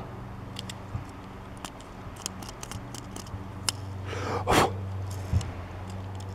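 Small clicks and taps of a die-cast Hot Wheels toy car being handled and turned over in the fingers, over a steady low hum, with a brief louder rustle about four and a half seconds in.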